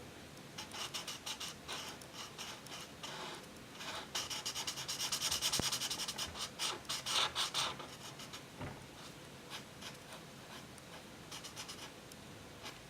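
The large 7 mm tip of a twin-tipped marker rubbed across paper in quick, short strokes, busiest in the middle and lighter towards the end.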